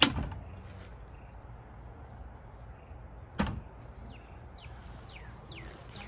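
Two sharp knocks about three and a half seconds apart, the first the louder, over a low steady hum. Near the end a bird gives a run of quick whistles, each falling in pitch.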